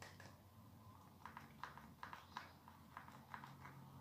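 Moisturizer pump bottle being pressed over and over, faint quick clicks about four a second starting about a second in. The pump is being primed before the cream comes out.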